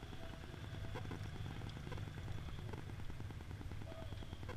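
A car engine idling steadily nearby: a low rumble with a quick, even pulse.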